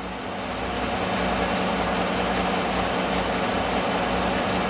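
Chevrolet Silverado pickup engine idling steadily.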